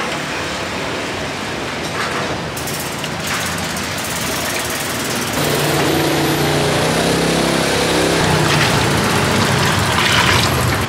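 A steady engine-like rumble with a motor hum that comes in about five seconds in and fades near the end, over liquid splashing as broth is ladled from a large stockpot and water is poured from the ladle.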